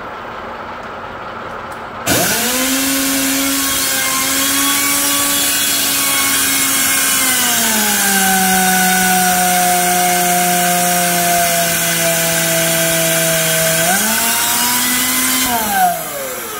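Home-built electric belt polisher of the crankshaft-polisher type starting up about two seconds in, its abrasive belt running against a slowly turning shaft in a lathe: a steady motor whine over a hiss. The whine drops in pitch about halfway through, rises again near the end, then winds down as the motor stops.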